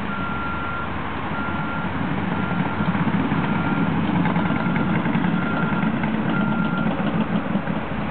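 A construction machine's reversing alarm beeping seven times, about once a second, over the steady running of a diesel engine; the beeping stops about seven seconds in.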